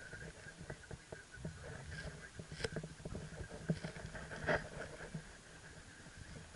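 Small irregular clicks and knocks inside a car, the louder ones near the middle, over the car's steady low hum.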